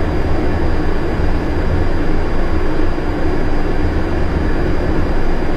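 Steady, loud airflow and engine noise inside an Airbus A320 cockpit on final approach, an even rushing hum with a low drone underneath.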